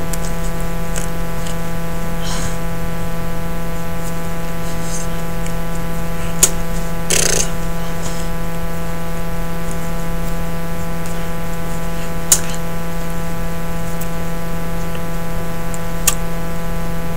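Steady buzzing hum made of many even tones, with a few sharp clicks and a brief rustle about seven seconds in.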